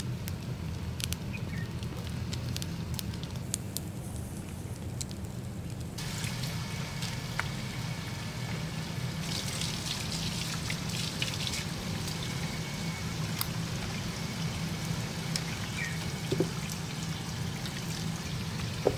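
Water from a garden hose running and splashing as small mackerel are rinsed and cleaned by hand. For the first several seconds, a wood fire crackles with scattered sharp snaps.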